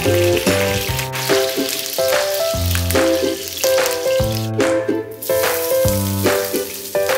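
Diced ham, and near the end chopped garlic, sizzling steadily in hot oil in a frying pan. Background music with a plucked melody and a bass line plays over it.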